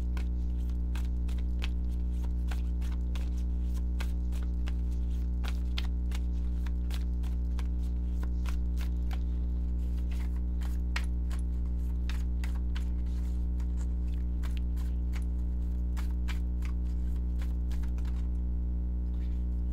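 Steady low electrical hum, with irregular light clicks and taps of oracle cards being handled and laid out; the clicking stops near the end.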